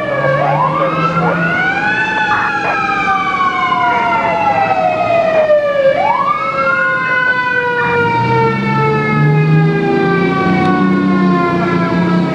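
Fire apparatus sirens. A mechanical siren winds up quickly and then slowly coasts down in pitch, once near the start and again about six seconds in, over another siren tone that is already falling. A deep engine rumble joins from about eight seconds in.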